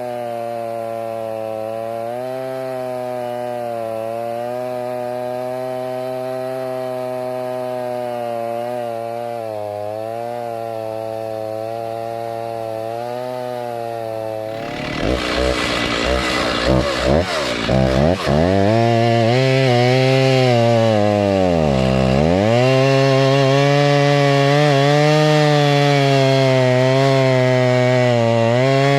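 Kubota tractor's diesel engine running at a steady speed, then throttled up about halfway through. A few brief surges follow and its pitch sags once as it takes load, before it settles at the higher speed.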